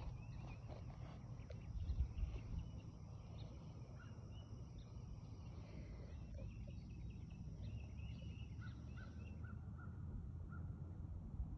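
Wild birds chirping, with many short high calls throughout and a row of about five quick, lower notes near the end. A thin steady high tone runs under them and stops about two seconds before the end.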